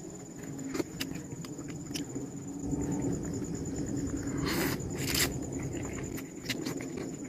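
Eating noodles: scattered small clicks and chewing, with two short slurps about four and a half and five seconds in.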